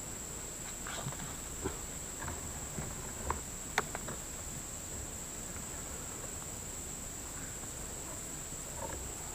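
A steady high-pitched insect drone, with a few light clicks and rustles of handling in the first four seconds.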